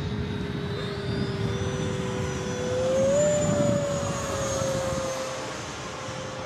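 Electric ducted fan whine of radio-controlled model jets in flight. One steady whine is joined by a second that rises in pitch to a peak about three seconds in, when the sound is loudest, then eases off as the jet passes.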